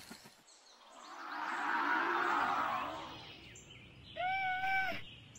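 A whooshing swell that rises and falls over about two seconds, a cartoon whoosh effect. Near the end comes a short held whine-like tone that rises at its onset.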